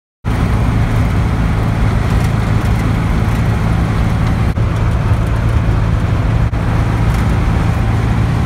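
1965 Volkswagen Beetle's air-cooled flat-four engine running at a steady cruising speed, with tyre and wind noise, heard from inside the cabin; it cuts in abruptly just after the start.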